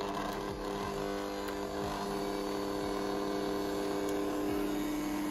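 1000-watt Bosch stand mixer motor running steadily on a low speed setting, mixing high-hydration sourdough dough; its hum drops to a lower pitch right at the start as the speed dial is turned.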